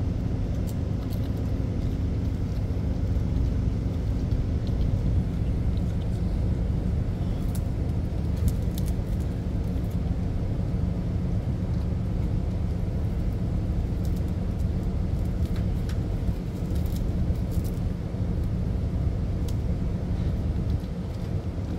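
Steady low rumble of a ship's engines and machinery, with a few faint ticks over it.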